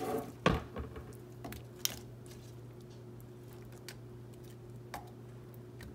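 Chopped peppers and onions dropped and pushed by hand into a slow cooker's crock: a knock about half a second in, then a few scattered soft clicks and taps, over a low steady hum.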